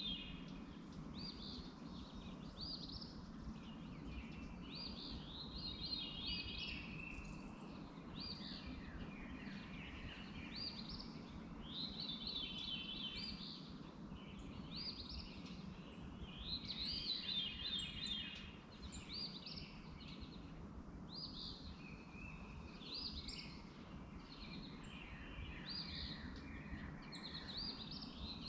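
Birdsong: short phrases of quick chirping notes, one every second or two, over a steady low hum.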